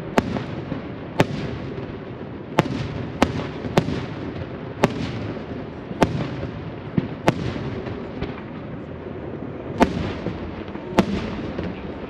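Aerial fireworks shells bursting in a display: about a dozen sharp bangs at uneven intervals, a second or so apart with a longer gap near the middle, over a steady rumble from the ongoing show.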